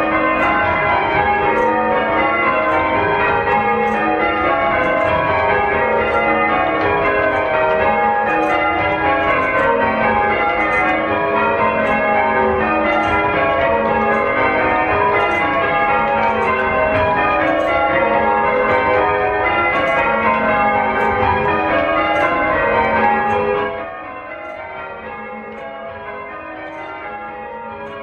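Church bells being change-rung, one strike after another in quick succession with the tones overlapping. About 23 seconds in the sound suddenly drops to a quieter level, and the ringing goes on more faintly.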